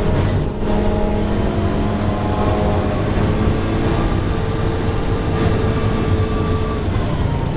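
Ferrari 488 Challenge race car's twin-turbo V8 running hard on track, heard from on board, with a brief dip about half a second in and the engine pitch falling near the end.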